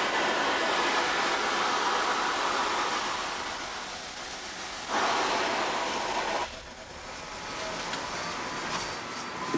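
Steady hissing in the cab of Union Pacific 844, a 4-8-4 Northern steam locomotive. About five seconds in comes a louder burst of hissing that stops abruptly after about a second and a half.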